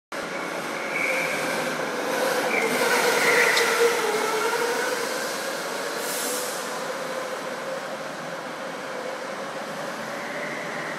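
Go-karts running on a track, their motors whining, rising in pitch about three to four seconds in and then settling to a steadier note.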